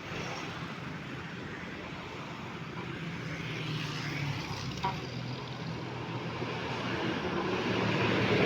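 Road traffic going by, its noise growing louder toward the end as a vehicle draws near, with one short click about five seconds in.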